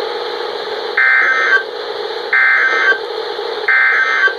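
NOAA Weather Radio sending three short, even bursts of buzzy SAME digital data tones, about a second and a half apart. This is the end-of-message code that closes the severe thunderstorm warning just read.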